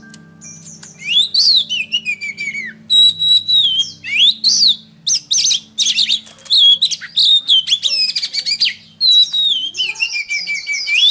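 Songbird singing a loud, fast, varied song of sweeping whistles and chirps, starting about a second in and running almost without a break.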